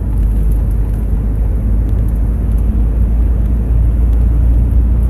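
Car cabin noise while driving on a snow-covered road: a steady low rumble of tyres and engine, growing slightly louder about three and a half seconds in.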